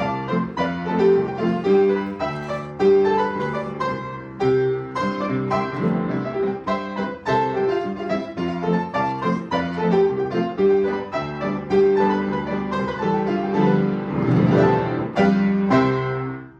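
Solo piano played by a young student, a run of notes and chords that gathers into a fuller closing passage near the end and then dies away.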